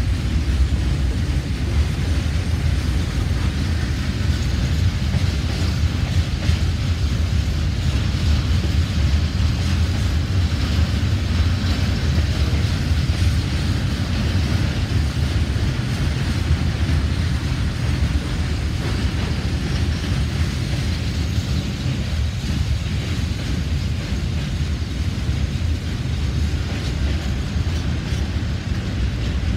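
Steady rumble of a passenger train running along the track, heard from inside the carriage: wheel and rail noise with a low drone, even in level throughout.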